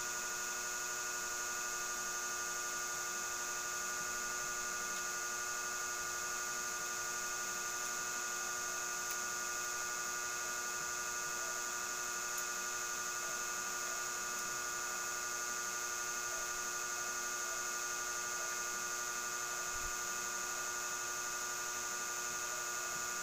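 Electric fan running: a steady, somewhat noisy hum made of several held tones, with a thin high whine above it.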